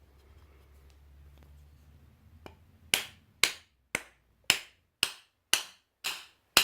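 A wooden handle being knocked into a ball peen hammer head: a steady run of sharp knocks, about two a second, starting about three seconds in.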